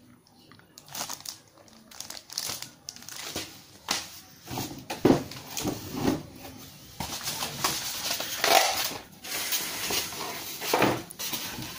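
Packaging being handled: irregular crinkling and rustling, with a few soft knocks.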